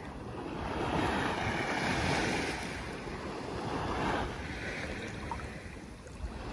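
Sea waves washing onto the beach, swelling from about a second in and again near four seconds, with wind rumbling on the microphone.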